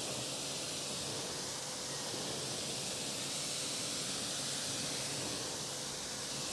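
Pressure washer jet spraying water onto a car's wheel and wheel arch, rinsing off foam: a steady hiss of water.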